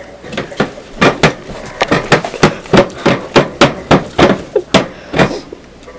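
A red spatula beating thick brownie batter in a mixing bowl, knocking against the bowl in a rapid run of sharp strikes, three or four a second, that stops near the end.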